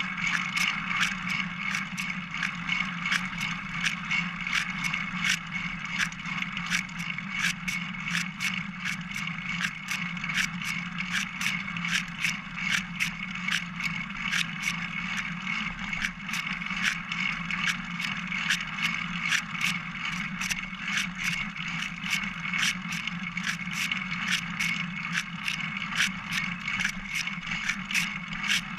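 Single-speed bicycle riding along a trail, heard through a camera mounted on its frame: a steady rolling hum with frequent sharp clicks and rattles, about two or three a second.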